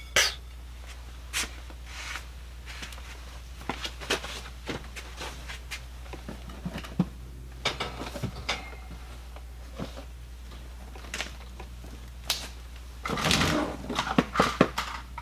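Scattered light clicks and knocks of items being handled and rummaged through in a box, with about a second of denser rustling near the end.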